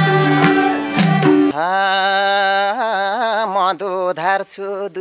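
Dohori folk music with harmonium and a sharp beat about twice a second, which stops about one and a half seconds in; a male singer then carries a long, wavering sung line on his own.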